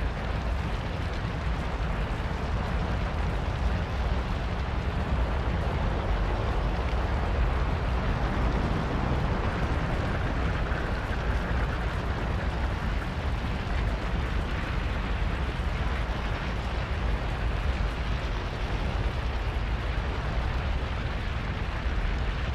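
A tall wall of fire burning with a steady, deep rushing roar, unbroken throughout.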